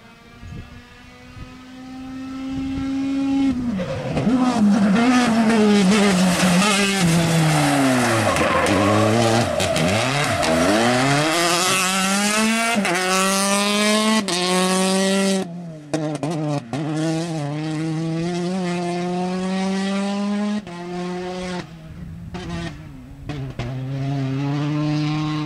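Rally car engine at full power: it revs high as it approaches, the revs fall sharply as it slows for the bend, then it accelerates hard past, climbing through the gears in quick steps. After an abrupt break about two-thirds of the way in, another rally car is heard farther off, accelerating and changing up through its gears.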